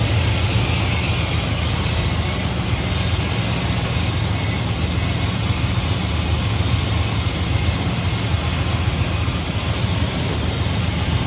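Chevrolet 350 small-block V8 running steadily at idle after sitting unused for about three years; the owner says it sounds pretty good.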